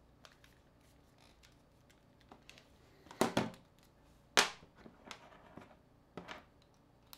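Scattered clicks and knocks of a mobile phone's casing, parts and a small tool being handled and set down on a tabletop as the phone is put back together. The two loudest knocks come about three and four and a half seconds in.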